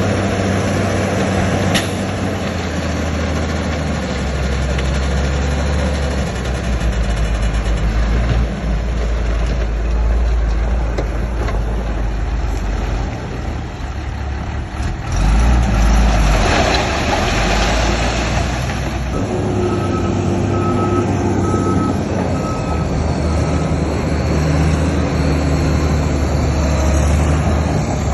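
Diesel engines of heavy earthmoving machinery, a bulldozer and dump trucks, running and changing speed under load, with a louder surge of noise about halfway through. Partway through, a reversing alarm gives about six short beeps.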